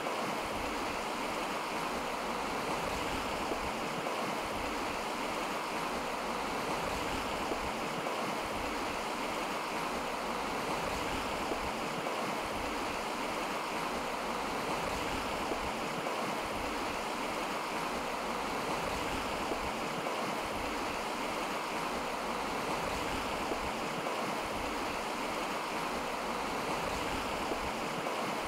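A river in flood, its water rushing with a steady, even noise.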